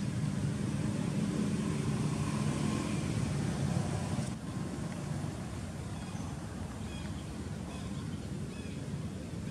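Steady low engine rumble of motor traffic, dipping briefly about four seconds in. A few faint short high chirps come in the second half.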